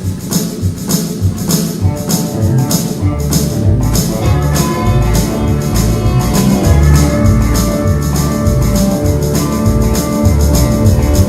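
A band with drums, bass, keys, lead guitar, fiddle and pedal steel playing a song's instrumental intro, the drums keeping a steady beat.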